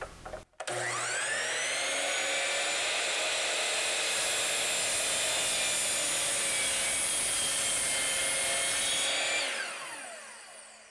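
Sliding mitre saw's motor starting with a rising whine up to full speed and running steadily while the blade is drawn through a board for an angled cut. Near the end the trigger is released and the blade winds down with a falling whine.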